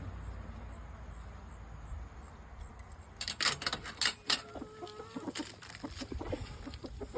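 Chickens clucking softly among a flurry of sharp taps and scratches, starting about three seconds in, as they go after cracked corn.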